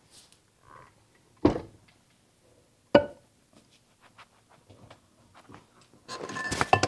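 Two sharp knocks about a second and a half apart, a dish or utensil knocked against the mixing bowl while flour is added to cake batter, then clattering and clinking of kitchenware near the end.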